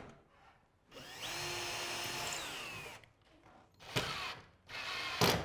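Ryobi cordless drill running for about two seconds, its motor pitch rising then falling, as it drills through an aluminium door track into timber; two short bursts of the tool follow near the end.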